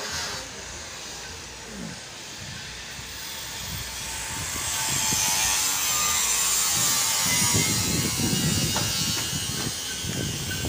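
Outdoor street ambience with traffic noise that swells to its loudest a little after halfway, then low rumbling in the last few seconds.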